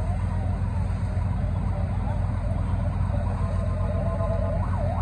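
Fire engines running on scene with a steady low rumble; near the end a fire-engine siren starts a fast rising-and-falling yelp.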